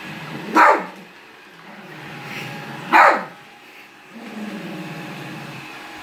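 Small dog giving two sharp single barks about two and a half seconds apart, alarm barking at a robot vacuum. A steady low whir of the robot vacuum runs underneath.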